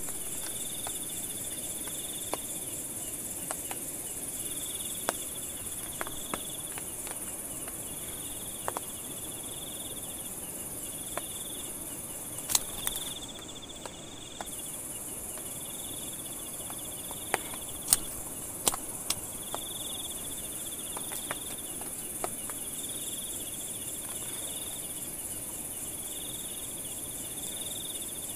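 Night insect chorus: a steady high-pitched drone with crickets trilling in short bursts of about a second, repeating every couple of seconds. Scattered sharp clicks and taps sound over it, the loudest about twelve and eighteen seconds in.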